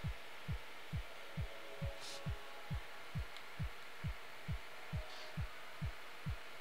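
A steady low thumping beat, a little over two thuds a second, each thud short and falling in pitch, over a faint hum. A brief soft hiss comes about two seconds in.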